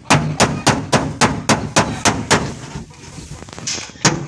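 Hand tool striking a dented Toyota Vios door panel in quick, even blows, about three or four a second, as the dent is beaten out. The blows stop about two and a half seconds in and start again near the end.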